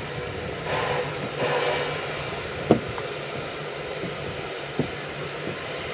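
C17 class steam locomotive running light engine, its exhaust chuffing about every 0.7 s, strongest in the first two seconds and then softer. Two sharp clanks come near the middle and again near the end.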